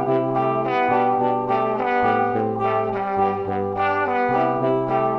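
Background music played by brass instruments, trumpets and trombones, with a quick steady pulse of notes over low held notes.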